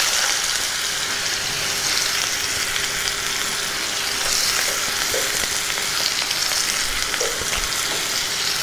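Grated bottle gourd sizzling steadily as it fries in hot ghee in a clay pot, stirred with a wooden spatula.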